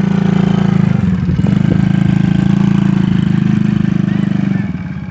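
Coolster 110 mini ATV's small single-cylinder four-stroke engine running at a steady pitch as the quad rides away, growing fainter near the end.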